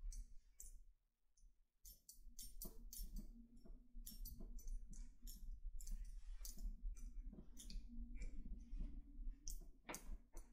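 Faint scattered clicks and rustles from a person moving about and handling a smartphone, over a faint low murmur.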